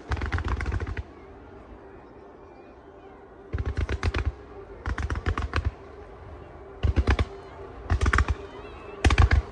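Aerial fireworks going off in quick salvos, each a rapid string of sharp cracks with a low boom beneath, about six salvos with short quiet gaps between them.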